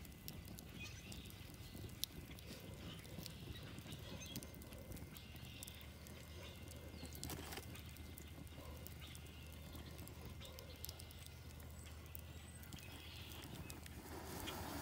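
Faint crackling of a wood fire, scattered small pops and snaps from burning split logs, with one sharper pop about two seconds in, over a low steady rumble.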